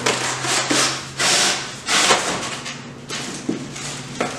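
Cardboard packaging scraping and rustling as a long cardboard tube is slid out of a shipping box, in a run of uneven scrapes.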